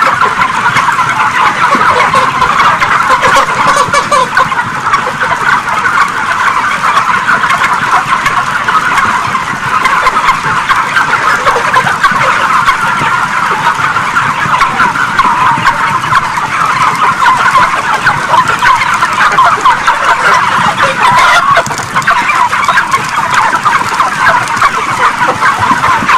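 Dense, continuous chatter of a large flock of broiler chickens packed together, a steady din of overlapping calls.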